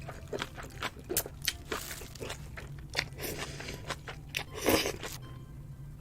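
Close-up eating sounds: crunchy bites and chewing of kimchi-wrapped spicy noodles, a quick run of sharp crunches with the loudest, longest bite just before five seconds in, then it quiets.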